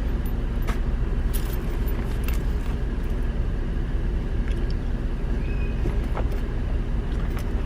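Steady low rumble of a car heard from inside the cabin, with a few light clicks.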